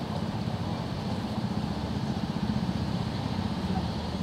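City street traffic: a steady low rumble of vehicle engines, with buses and cars idling at the intersection.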